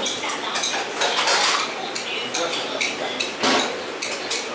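A metal soup spoon clinking and scraping against a ceramic bowl, several times over, as rice noodle soup is scooped up.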